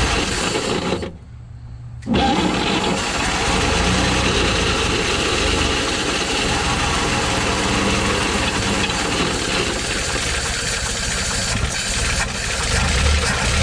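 A 1957 Chevrolet truck's inline-six engine is cranked on the starter. It stops briefly about a second in, then goes again from about two seconds and keeps turning over steadily. This is a start attempt after priming, to see whether the mechanical fuel pump will draw fuel on its own.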